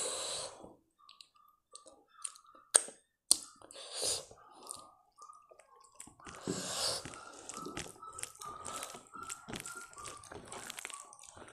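Close-miked eating by hand: rice and pickle gravy squelched and mixed with the fingers on a metal plate, with chewing and a couple of sharp clicks about three seconds in.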